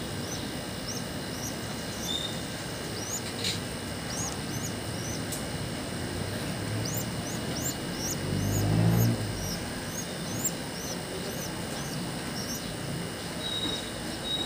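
Pigeon squabs cheeping in quick, high, rising peeps, two or three a second, as they beg while the parent feeds them crop milk beak to beak. A brief low rumble comes about nine seconds in.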